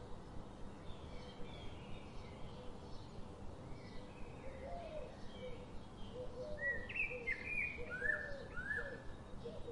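Small birds chirping: a series of short falling chirps, loudest about seven seconds in, over a steady outdoor background hum.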